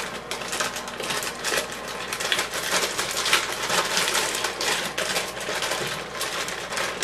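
Plastic vegetable bag crinkling and crackling in a fast, irregular string as hands pull at it, trying to open it; the bag does not tear.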